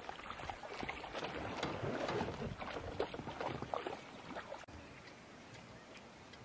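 Shallow water splashing and sloshing irregularly as African wild dogs wade, lie and play in a waterhole, dropping suddenly to a quieter background after about four and a half seconds.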